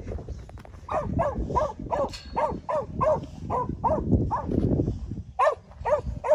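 Black and tan working dog barking at sheep to force them up to a gate: a steady run of short barks, about three a second, a brief pause near five seconds, then three more.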